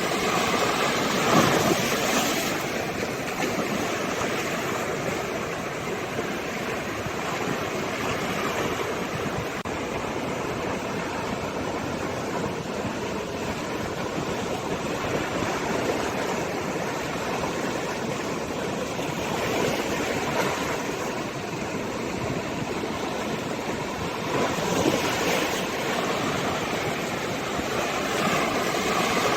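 Sea waves breaking and washing on the shore, a steady rush that swells every few seconds, louder about a second in and again near the end.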